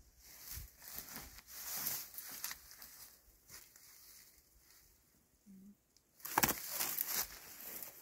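Footsteps crunching through dead bracken, with dry fronds rustling; the rustling gets louder about six seconds in.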